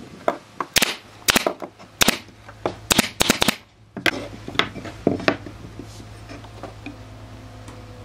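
Irregular sharp knocks and clicks of hard objects striking, closely spaced for about the first four seconds, then sparser and lighter over a steady low hum.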